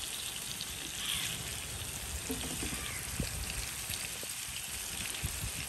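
Ribbon fish pieces in red masala sizzling steadily as they shallow-fry in coconut oil in a pan.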